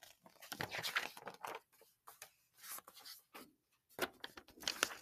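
Pages of a picture book being turned and handled, paper rustling in two spells: one starting about half a second in, another near the end.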